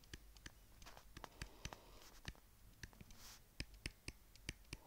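Stylus writing on a tablet screen: faint, irregular clicks, several a second, with light scratching as letters are formed.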